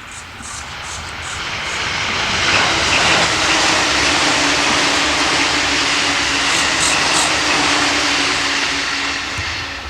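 An electric train on the Joban Line passing at speed. A rushing rail and wind noise builds over a couple of seconds, holds with a steady hum for about six seconds, then fades near the end.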